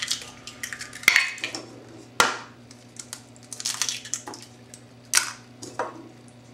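Raw eggs being cracked and their shells pulled apart over a mixing bowl: a series of separate sharp taps and short shell crackles, with the eggs dropping into the mixture.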